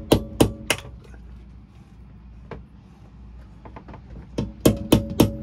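Hammer tapping a cut-off 16-penny nail used as a punch to drive the hinge pins out of a boat port light window from the inside. Three ringing metal taps come in the first second, then a pause with a few light clicks, then a quick run of taps, about four a second, near the end.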